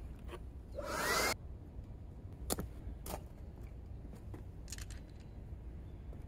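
Hand tools being worked at a car wheel: a short noisy burst with a rising whir about a second in, then a few separate sharp clicks.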